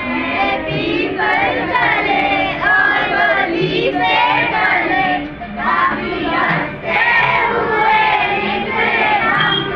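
A group of children singing a prayer together, line after line, with short breaks between phrases about five and a half and seven seconds in.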